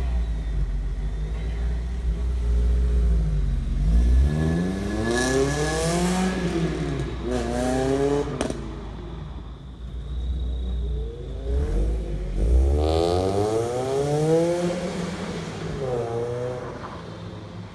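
Supercharged Mazda MX-5 Miata (NC) 2.0-litre four-cylinder engine and exhaust, idling and then free-revved several times, the pitch climbing and falling back with each blip of the throttle.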